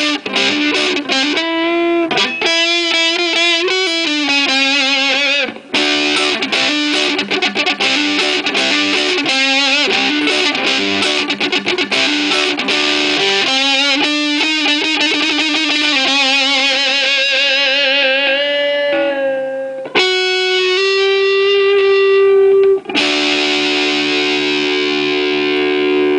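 Homemade three-string electric guitar with a hand-wound pickup, played amplified: picked single notes and short riffs with wavering, bending pitch, settling into long held notes near the end.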